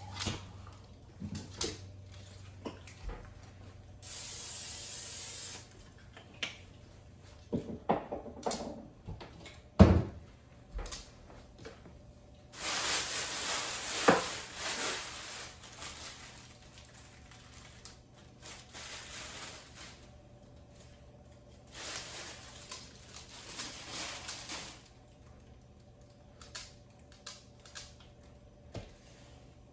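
Plastic grocery bag and chicken wrapping rustling in bursts of a few seconds, with scattered knocks on the countertop, the sharpest about ten seconds in.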